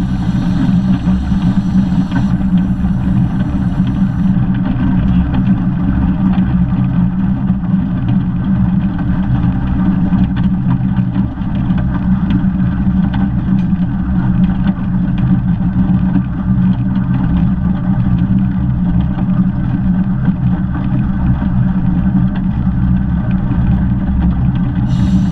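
Steady loud rumble of a 15-inch gauge steam locomotive and its train running along the line, heard close up from the cab side. A thin high hiss sits over it for the first few seconds and returns at the very end.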